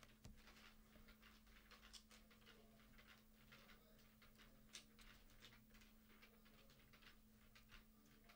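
Near silence: a faint steady hum with many faint, scattered clicks.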